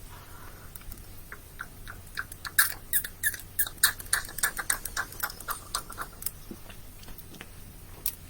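A person chewing a mouthful of dry hot-pepper powder wetted with chili tincture: irregular close, moist clicks and smacks of the mouth, busiest a few seconds in and thinning out near the end.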